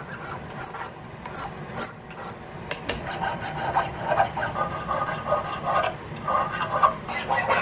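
Round hand file rasping back and forth over the outer curve of a cast steel buckhorn rear sight held in a vise, cleaning up burrs left from the casting. It starts as a few short, quick strokes, then from about three seconds in becomes a steady run of faster filing.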